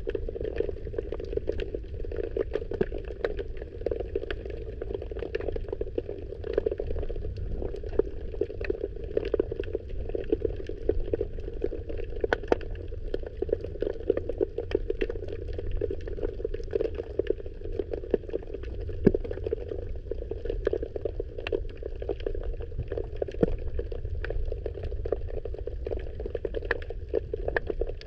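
Muffled underwater sound picked up by a camera in its waterproof housing: a steady low rumble of moving water with a dense, irregular scatter of small clicks and crackles.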